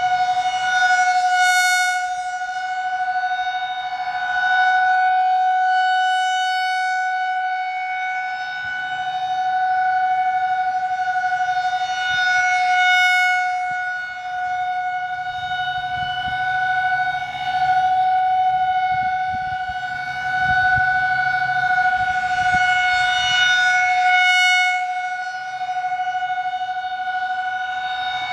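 Federal Signal 2001-SRNB rotating storm siren sounding its steady Alert tone at test. The pitch holds level throughout while the loudness swells and fades every few seconds.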